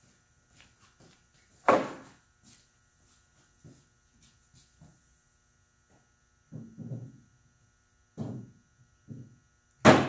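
Two sharp knocks, one about two seconds in and a louder one near the end, with a few softer, duller thuds between them, over a faint steady hum.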